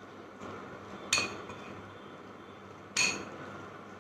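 Metal spoon stirring chopped salsa in a glass bowl: soft scraping, with two sharp ringing clinks of the spoon against the glass about two seconds apart.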